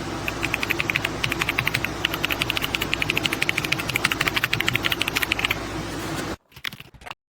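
Fast typing on an RK Royal Kludge F99 mechanical keyboard: a quick, dense run of key clicks over a steady hum, stopping about five and a half seconds in.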